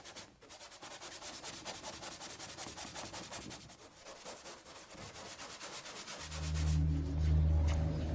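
Paintbrush strokes on paper, a quick rhythmic brushing of several strokes a second. About six seconds in the brushing stops and a low steady hum begins.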